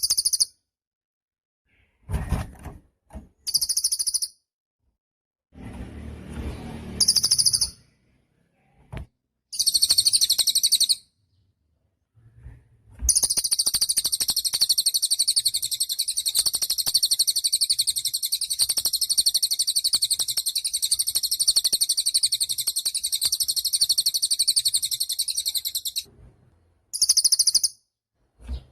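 Cililin songbird singing very high-pitched, rapid trilled phrases: several short bursts, then one long unbroken trill lasting about thirteen seconds, and another short burst near the end. A few low thumps and a brief low rustle come in the first few seconds.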